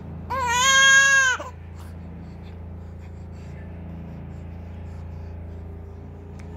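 An infant gives one loud, high-pitched cry lasting about a second, a moment after the start, over a steady low hum.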